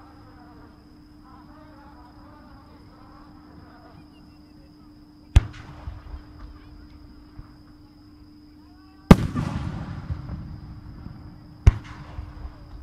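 Aerial fireworks shells going off in the distance: three sharp bangs, about five, nine and twelve seconds in. The middle bang is the loudest and rolls on as a rumbling echo for a couple of seconds.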